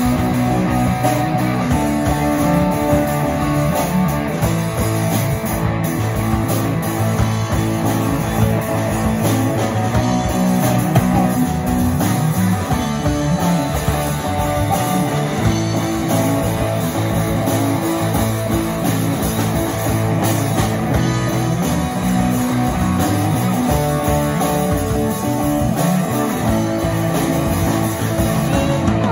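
Rock band playing live, with electric guitars and a drum kit.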